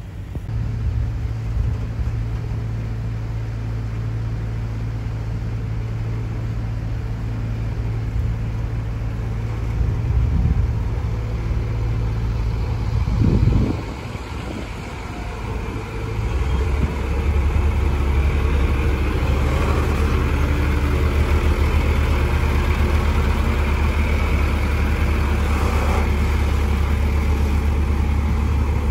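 Diesel engine of a six-wheel dump truck working along a rough dirt track, with steady low running. About 13 seconds in the engine rises briefly in pitch and drops away, then settles into a louder, steady low drone.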